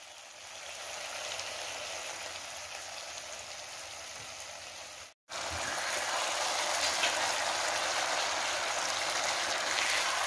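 Chicken woku in red spice paste sizzling in a pan, a steady hiss. It cuts out briefly about halfway, then comes back a little louder.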